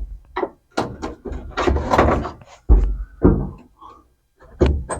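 Hand tools clattering and knocking as they are handled and sorted, with a few heavy thumps near the start, partway through and near the end, and a rattling spell in the middle.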